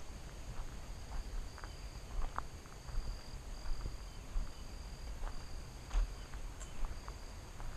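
Insects trilling in a steady high buzz that breaks off and resumes every second or so, with irregular footsteps on the trail.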